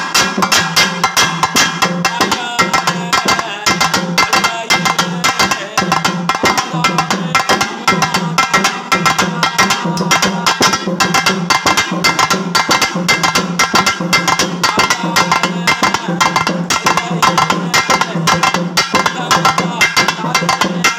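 Pambai, the Tamil pair of stick-played drums, played in a fast, unbroken rhythm of rapid strokes.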